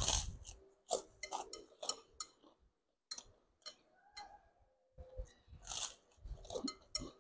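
Close-up eating sounds: biting and chewing mouthfuls of fried noodles, wet mouth noises coming in irregular bursts with a quiet gap midway.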